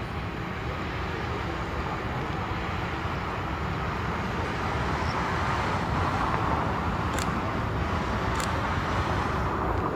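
Jet airliner engine noise: a steady rush that swells louder around the middle and stays up, with two short sharp clicks a little over a second apart near the end.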